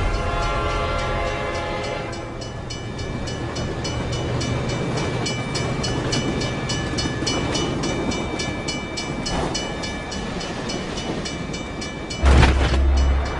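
Freight train passing a level crossing close by. Its horn sounds for the first two seconds, then gives way to a rapid, rhythmic clatter of the wagons going by. Near the end a sudden loud low rumble comes in.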